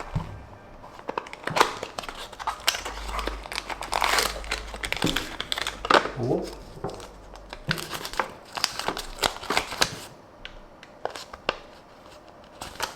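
Toy-car packaging handled and opened by hand: irregular crinkling and rustling, with many sharp little clicks and taps.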